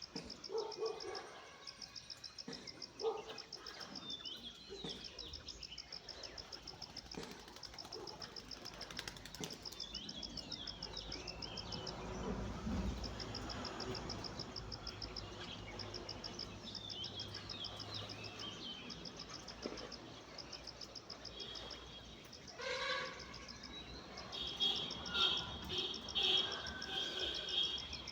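Wild birds giving short chirping calls over a steady, rapidly pulsing insect trill, with a burst of louder bird calls near the end.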